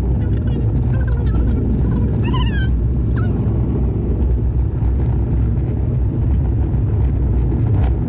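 Car road and engine noise inside a moving car: a steady low rumble. Between about one and three seconds in, a few brief, high-pitched wavering sounds rise over it.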